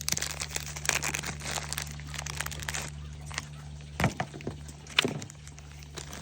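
Plastic packaging being handled and opened, crinkling and crackling, with scattered sharp clicks, the loudest about 4 and 5 seconds in, over a steady low hum.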